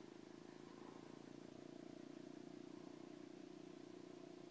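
Near silence, with only a faint steady low drone that has a fine even pulse to it.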